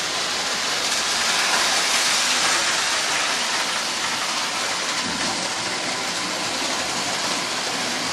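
Electric model train running around its track: a steady rushing whir of motor and wheels on the rails that swells slightly about two seconds in.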